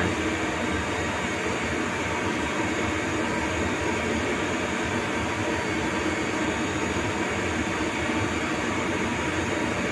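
Steady, even whir of cooling fans and machinery, with no strokes or changes in pitch.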